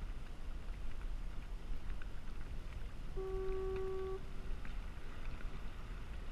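Wind rumbling on the microphone over water sounds from a kayak on the harbor. A single steady tone, the loudest thing here, sounds for about a second a little past halfway.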